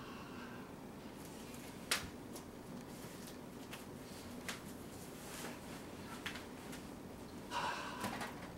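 Faint kitchen handling sounds over quiet room tone: a sharp click about two seconds in, then a few soft taps, and a brief louder scrape near the end.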